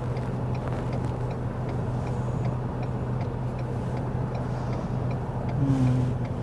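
Turn signal ticking evenly, about three ticks a second, inside a pickup truck's cabin over the steady hum of the truck's engine, signalling a left turn.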